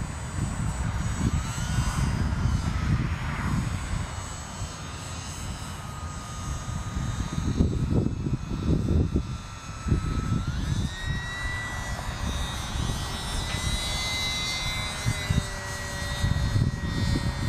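Radio-controlled model biplane's motor and propeller whining in flight, a steady high tone that steps up in pitch about ten seconds in and holds there.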